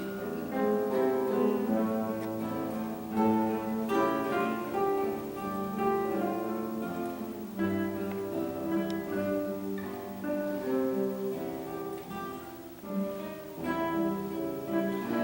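Tone chime ensemble playing a piece live, overlapping sustained ringing notes over a plucked guitar accompaniment.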